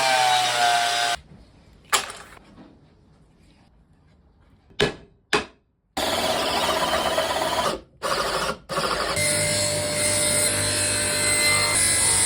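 Bosch power tool working wood, running in bursts. It stops about a second in, three sharp knocks follow over a quiet stretch, and it runs again from about six seconds, with a brief break near eight seconds.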